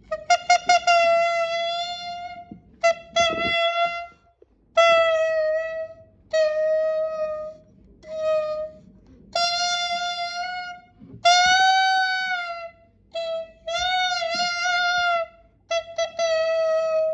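Clarinet imitating a crying child: quick stuttering sobs, then a series of long wailing notes separated by short breaths, several sagging in pitch at the end. A wobbling wail comes near the end.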